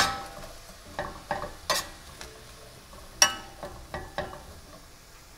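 Diced onion and red pepper being stirred in a stainless steel sauté pan, the utensil clinking sharply against the pan several times, loudest right at the start and again about three seconds in. Between the clinks there is a faint sizzle of the vegetables sautéing in a little water instead of oil.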